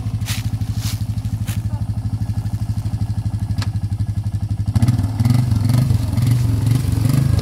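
Polaris Magnum quad's single-cylinder four-stroke engine idling with a rapid, even beat. Near the end it picks up, louder and uneven as it is throttled.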